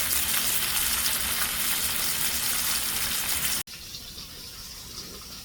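Bacon frying in hot sausage grease: a loud, steady sizzle that drops suddenly to a quieter sizzle about three and a half seconds in.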